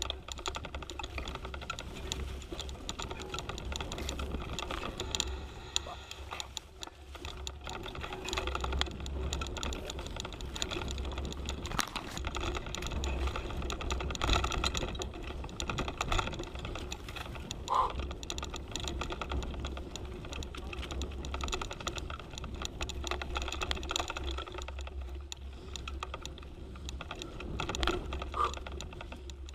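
Mountain bike jolting over a dirt singletrack, heard through a handlebar-mounted camera: a continuous clatter of small clicks and rattles over a steady low rumble.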